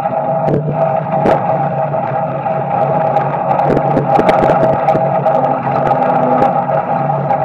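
Street Stock race car's small-block Chevy V8 running at a steady, nearly unchanging pitch, heard from inside the cockpit, with scattered sharp clicks and knocks.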